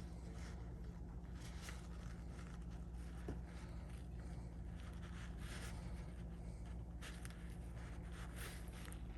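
Short, irregular scraping and rustling noises from hands and tools at work, roughly one every second, over a steady low hum.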